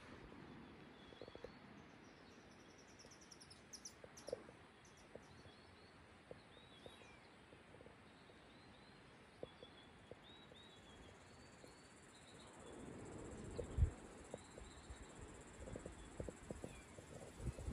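Faint cloud-forest ambience: a steady high insect hum with small birds giving short chirps again and again, and a few soft clicks. A low swell with a soft thump comes about two-thirds of the way through.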